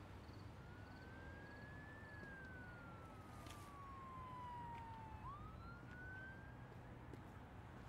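Faint distant siren wailing: its pitch rises slowly, falls for about three seconds, then sweeps back up quickly about five seconds in before fading, over a low steady rumble of street ambience.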